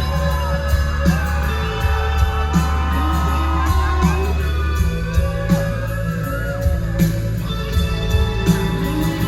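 A live rock band playing a song: drums with a steady beat, bass, and guitar, with a gliding melody line over them.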